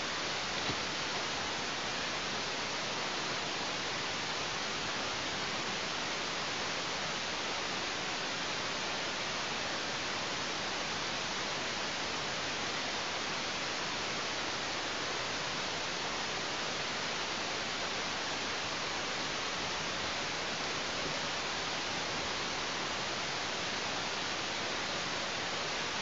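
Steady, even hiss of static from the nest camera's microphone, unchanging throughout.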